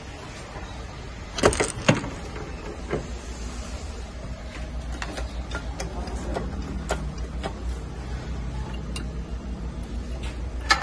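Metal knocks and clicks of hand tools and steel suspension parts being handled during work on a car's front shock absorber strut. Two sharp loud knocks come about a second and a half in, then lighter scattered clicks and another knock near the end, over a steady low hum.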